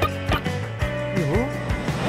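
Cartoon background music with a steady beat and held tones, with a short falling-then-rising swoop sound effect a little after the middle.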